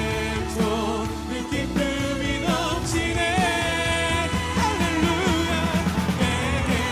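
Contemporary Korean worship music: a sung melody with a band playing a steady beat and bass underneath.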